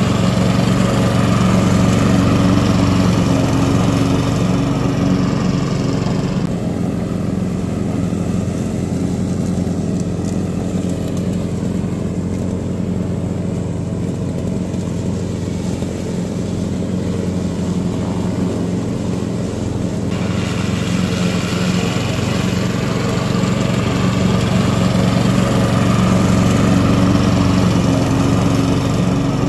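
Honda-engined A-POWER self-propelled petrol lawn mower running steadily while mowing grass. Its sound turns duller and quieter from about six seconds in as it moves farther off, and it comes back fuller around twenty seconds in.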